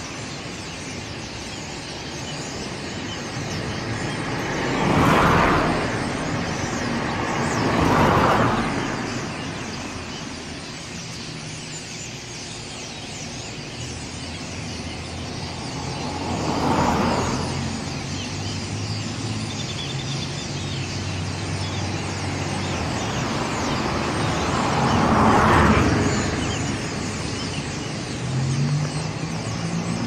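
Road traffic: cars passing one after another, each swelling and fading away, four passes in all, the loudest near the start and a little before the end. A low engine hum comes in about halfway and rises near the end as a vehicle pulls away.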